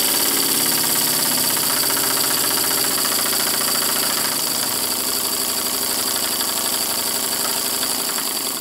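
Stuart Model 2A single-cylinder oscillating model steam engine running fast on compressed air: a rapid, even chuffing of the exhaust over a steady hiss of air. It cuts off suddenly at the very end as the air is shut off.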